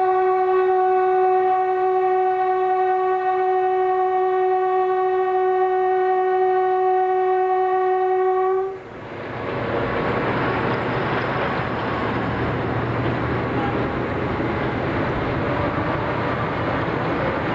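A narrow-gauge train's horn sounding one long, steady blast that stops abruptly about halfway through, followed by the steady rushing noise of the train running.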